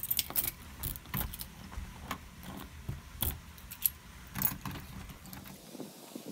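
Keys jangling on a key ring while a key is worked in a Kwikset door deadbolt, with a run of sharp metal clicks for the first four seconds or so, then thinning out.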